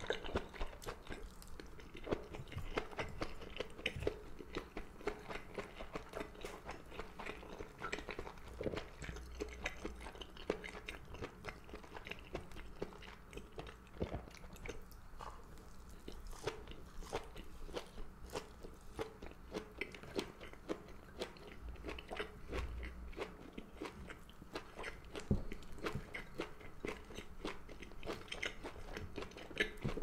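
Close-miked chewing and biting of rice, seaweed and gondre (Korean thistle greens). Many small wet mouth clicks and smacks follow each other irregularly throughout.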